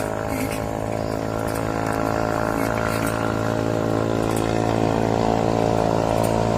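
Big-bore racing motorcycle engine with a 92 mm piston running steadily at low revs, slowly getting louder.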